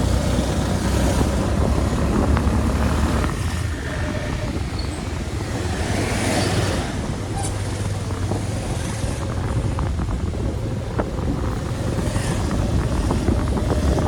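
A vehicle engine running steadily while on the move, with wind gusting over the microphone in several swells.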